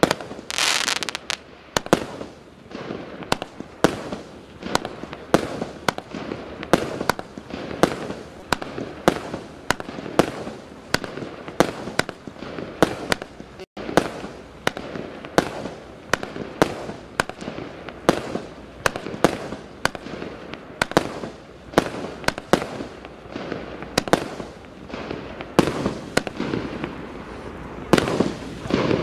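Asgard SU 05-76 firework cake firing shot after shot: a steady run of sharp bangs, about two a second, each followed by a short crackling tail as the shells burst.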